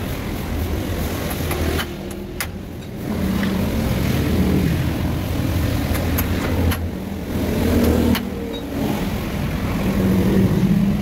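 Car engine running, its pitch rising and falling now and then.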